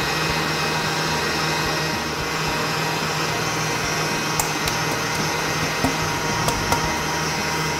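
Stand mixer motor running steadily at medium speed, its whisk beating eggs and sugar into a foam. A few faint clicks come in the middle.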